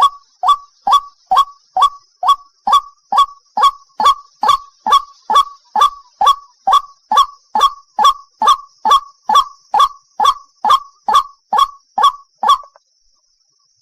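White-breasted waterhen (ruak-ruak) calling a single repeated 'kru-ak' note, about two to three calls a second in an even, unbroken series that stops shortly before the end. A faint steady high hiss runs underneath.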